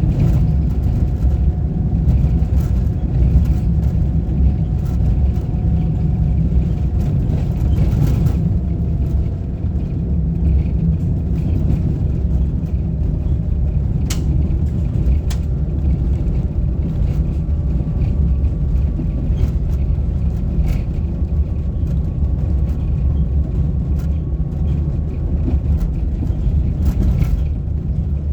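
Vehicle driving along a road: a steady low rumble of engine and tyres, with a couple of sharp knocks about halfway through.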